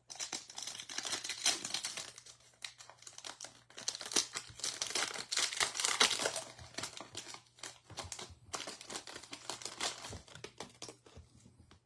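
Foil wrapper of a trading-card pack crinkling and tearing as it is opened by hand, in bursts of crackling that are loudest in the middle and thin out near the end.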